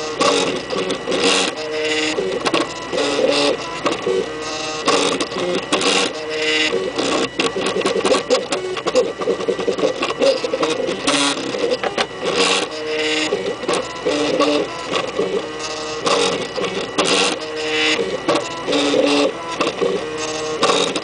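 Stepper motors of a MakerBot kit-built 3D printer whining as the print head moves over the build platform laying down a part's first layers. The whine jumps between pitches every fraction of a second, with frequent short clicks.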